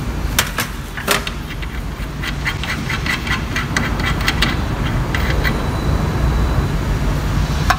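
A steady low machine rumble from the workshop, with a couple of sharp clicks near the start and then a quick run of light metallic clicks over a few seconds as the spring cap of a mechanical diesel fuel injector, clamped in a bench vise, is unscrewed by hand.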